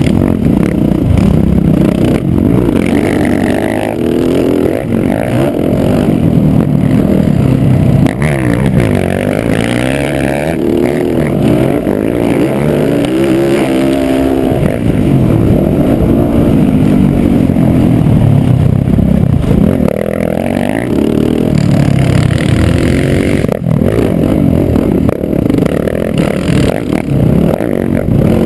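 Dirt bike engine running hard, heard close from the bike itself. Its pitch rises and falls over and over as the rider accelerates and backs off.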